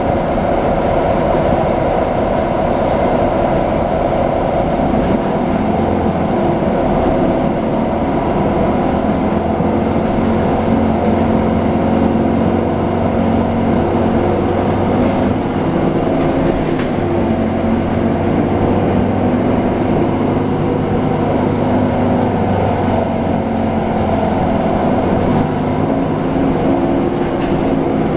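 Nova Bus LFS articulated city bus running, heard from inside the cabin: a steady engine and drivetrain drone with road rumble, its hum shifting slightly as speed changes, with a few faint rattles.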